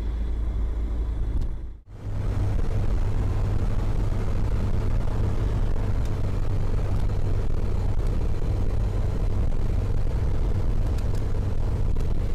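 Eurofox microlight's engine running steadily at low power while taxiing, heard in the cockpit through the headset intercom. The sound cuts out suddenly for a moment about two seconds in, then returns.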